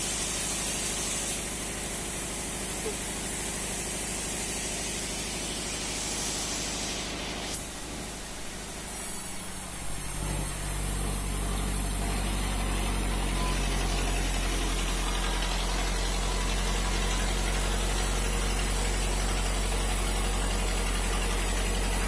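An engine idling steadily with a low hum. About ten seconds in, the hum shifts and grows louder.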